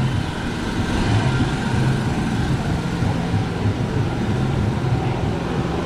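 Busy street noise led by an engine running with a steady, pulsing low drone.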